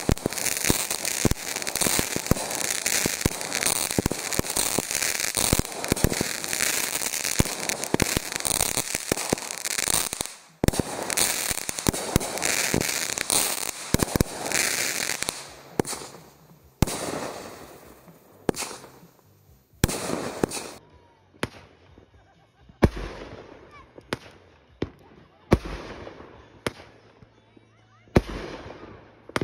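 Consumer aerial fireworks going off. For about the first fifteen seconds there is dense, continuous crackling and popping from overlapping bursts. After that the shots come singly, one sharp bang about every two and a half seconds, each fading away.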